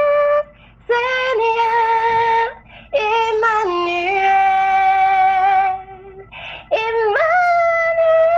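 A slow, wordless melody of long held notes, each a second or more, with short breaks between them. The last note slides up into its pitch.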